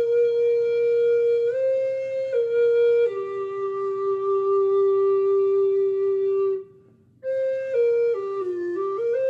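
A solo flute playing a slow melody of long held notes. It breaks off briefly about two-thirds of the way through, then returns with a quicker run of notes stepping down and back up.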